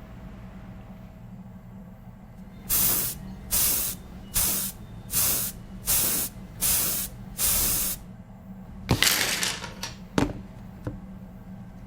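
Seven short sprays of hissing air or liquid in a steady rhythm, then a longer, uneven spray and a single sharp click.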